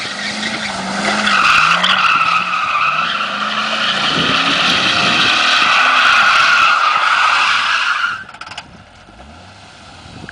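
Chevrolet Corvette C5's V8 revving under load while its rear tyres squeal continuously, spinning and smoking through donuts. About eight seconds in the squeal cuts off suddenly and the engine drops back to a quiet low run.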